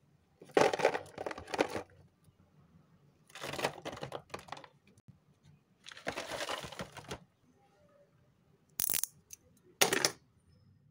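Hard, brittle shards of carved soap clattering and rattling against each other and a cardboard box as they are tipped out, in three bursts. Two short, sharp knocks follow near the end.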